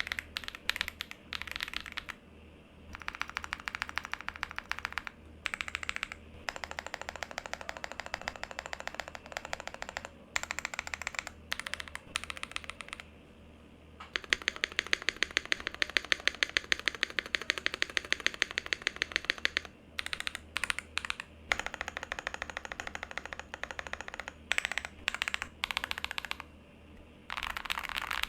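Typing on a mechanical keyboard fitted with Akko V3 Cream Blue tactile switches: fast runs of keystroke clicks in bursts, with short pauses between them. The fastest and loudest run lasts several seconds around the middle.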